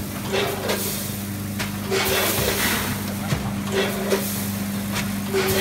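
Vertical rice-packing machine with a multihead weigher running: a steady machine hum, with short hissing bursts and a brief buzz repeating about every one and a half to two seconds as the machine cycles.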